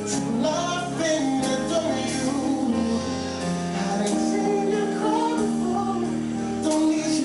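Live music: a male singer's voice over band backing with held chords.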